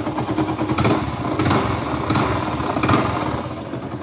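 Hero HF Deluxe's 100cc-class single-cylinder engine running at idle with a crank-like mechanical noise, swelling louder a few times. The noise is the sign of a failed crankshaft ball bearing whose cage has broken.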